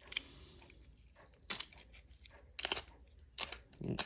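A mail package being torn open by hand: about four short rips and crinkles of the packaging.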